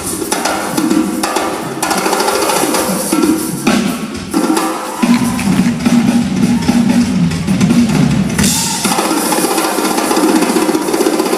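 Live band playing an instrumental passage, with drum kit and percussion to the fore and a dense cymbal wash.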